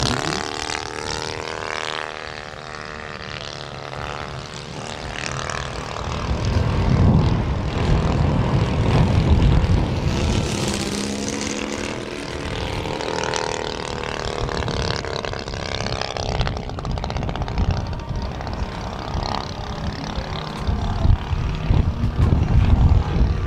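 The two-cylinder four-stroke gas engine (Valach Motors VM 120 B2-4T) and propeller of a giant-scale RC Zlin XII model airplane in flight. The engine note rises and falls in pitch throughout as the plane flies past.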